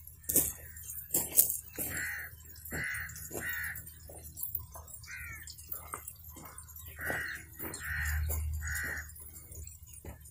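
A crow cawing: two runs of three harsh caws, a few seconds apart. A few sharp clicks near the start are the loudest sounds, over a steady low rumble.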